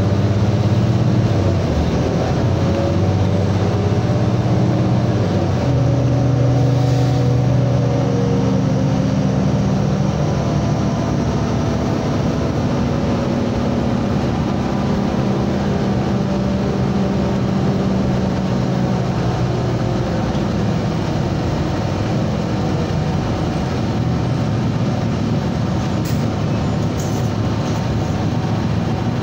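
City transit bus heard from inside, at a passenger seat: the engine's low drone changes slowly in pitch as the bus drives, over steady road and tyre noise. The engine hum fades under the road noise in the last third.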